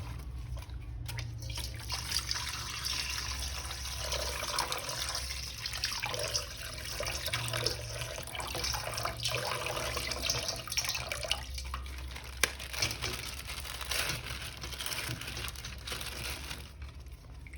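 Water running from a tap and splashing in a sink as a plastic toy figure is washed.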